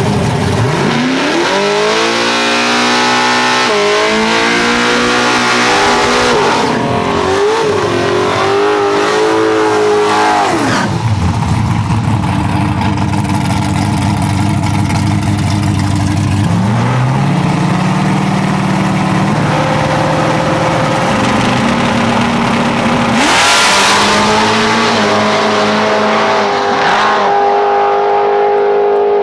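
Drag race car engines revving up and down several times, their pitch climbing and falling, with a louder, harsher surge about three-quarters of the way through.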